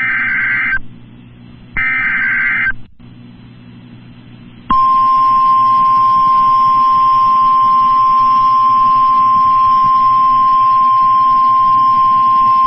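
NOAA Weather Radio Emergency Alert System activation for a Fire Warning. Two buzzy SAME header data bursts about a second long each come first; about two seconds later the steady single-pitch 1050 Hz weather radio warning alarm tone starts and holds. The tone signals that a warning message follows.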